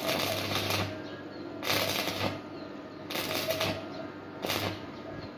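Stick (arc) welding tack-welding steel rod: the arc crackles in four short bursts, roughly one every second and a half, over a steady low hum.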